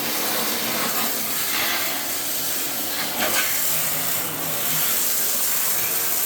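Steady, loud hiss of rushing air.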